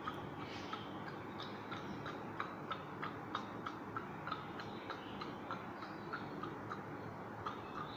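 A light, regular ticking, about three ticks a second, over a faint steady background hiss.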